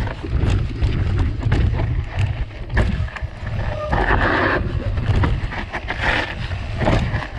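Mountain bike riding down a rough natural trail: wind buffets the microphone in a steady low rumble, and the tyres and bike give frequent clicks and knocks over the ground. A brief louder hiss comes about four seconds in.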